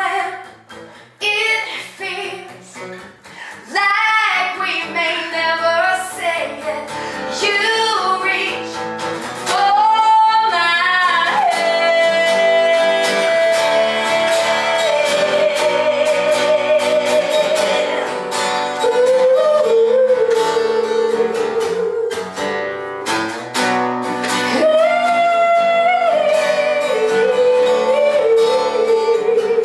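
Song performance: a woman's voice singing long, wavering held notes over plucked and strummed guitar.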